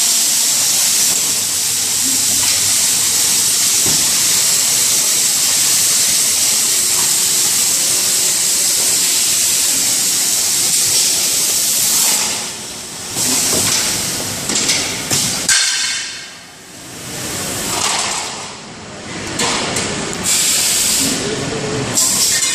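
Steady hiss from plastic box forming machinery, like escaping air. About halfway through it gives way to uneven knocks and clatter from the machines.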